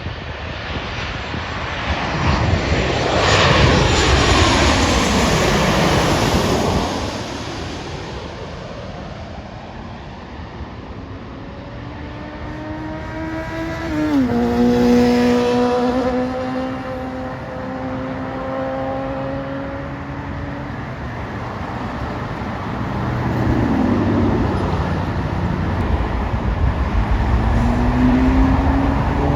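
Jet airliner engines passing low overhead: the noise swells to its loudest a few seconds in and fades. About halfway through, a second pass brings steady engine tones that drop sharply in pitch as it goes by, then a lower hum carries on.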